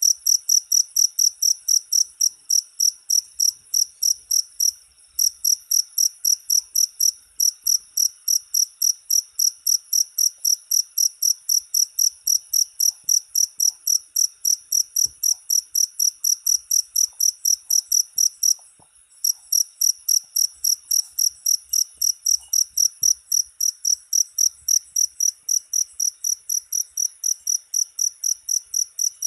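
Cricket chirping in a steady, even rhythm, about three high-pitched chirps a second, with two brief pauses, one about five seconds in and one about two-thirds of the way through.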